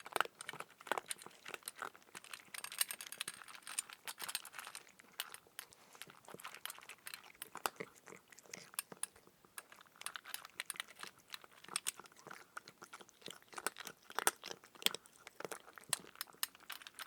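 Kitten chewing dry cat food, with quick, irregular crunches of the kibble.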